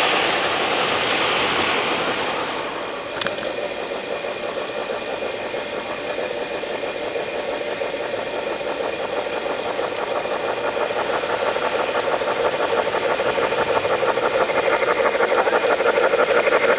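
Large-scale model Union Pacific steam locomotive running on garden-railway track: a fast, even chuffing from its sound system along with the running of its wheels on the rails. It grows steadily louder as the train comes closer.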